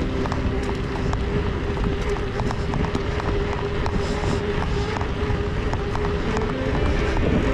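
Wind buffeting the microphone of a camera riding along on a bicycle: a steady low rumble with a faint steady hum and scattered small clicks.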